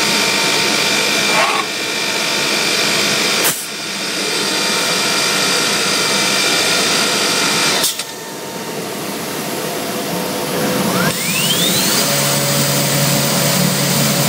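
Biesse CNC machining centre running with a steady whir and hiss. Two sharp clacks come about three and a half and eight seconds in. About eleven seconds in, a whine rises steeply in pitch as the router spindle spins up, then holds steady.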